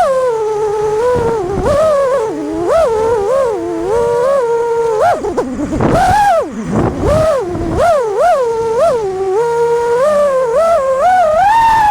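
FPV freestyle quadcopter's brushless motors whining, the pitch swooping up and down quickly and often as the throttle is worked.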